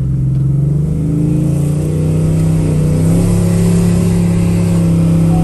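Ford F-150's 5.0 Coyote V8 engine droning under way, heard from inside the cab, its pitch rising slightly about two seconds in and then holding. The truck is leaking transmission fluid and, by the owner's account, no longer wants to accelerate.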